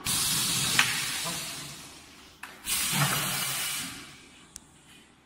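Pneumatic cylinders on a solar panel framing machine venting compressed air in two sudden hisses, about two and a half seconds apart. Each hiss fades away over a second or so, and each carries a short click.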